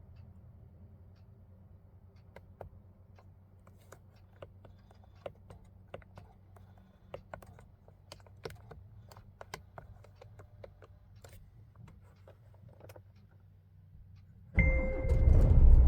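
Inside a truck cab: a faint low hum with many small scattered clicks and taps, then near the end a loud low rumble starts suddenly together with an on-off high beeping tone.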